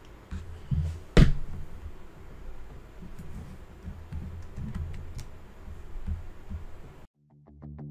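Scattered clicks and low knocks of a computer keyboard and mouse being worked at a desk, with one sharp click about a second in. The sound cuts out about seven seconds in, and outro music begins just before the end.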